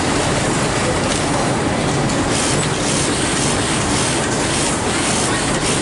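Industrial sewing machines running with a steady, continuous mechanical clatter and hum.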